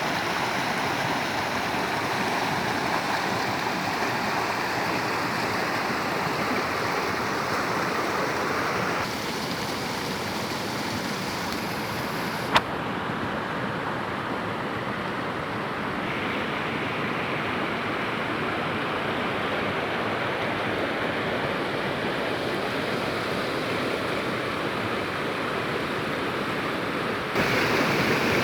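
Waterfall: steady rushing, splashing water, its tone shifting abruptly a few times, with a single sharp click about twelve seconds in.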